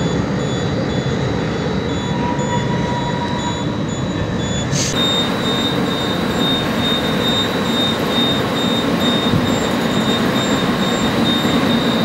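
Rail-Veyor train of two-wheeled ore railcars running on light-rail track through an electrically driven drive station: a steady, loud mechanical rumble with a thin high-pitched whine. The sound changes abruptly about five seconds in, and the whine grows stronger after that.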